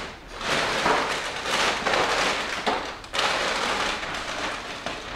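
Plastic grocery bags crinkling and rustling as groceries are unpacked from them, loudest in the first three seconds with a short break near the middle.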